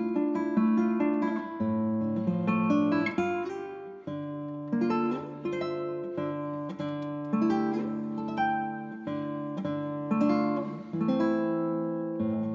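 Background music played on a plucked string instrument, notes picked one after another and left to ring.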